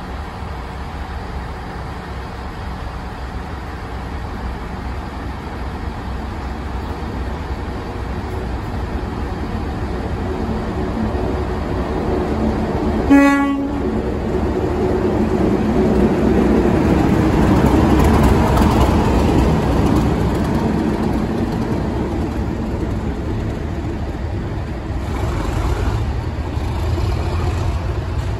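Class 37 diesel locomotives, with English Electric V12 engines, running through a station. There is one short horn toot about 13 seconds in. The engine sound grows to its loudest as the locomotive passes a few seconds later, then eases as it draws away.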